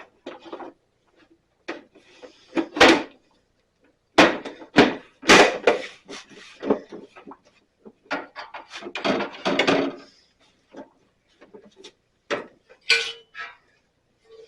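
Irregular knocks, clunks and rattles from the Sears Craftsman bandsaw's covers and parts being handled and shut, with several louder slams in the middle of the run.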